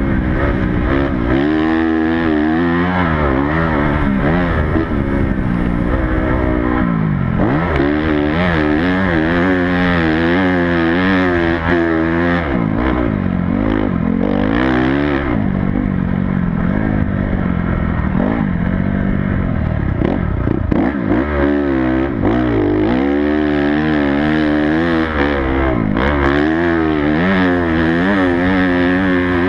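Honda CRF250 four-stroke motocross bike engine revving hard and falling back again and again as the rider opens and shuts the throttle through the gears, heard close up from the rider's helmet.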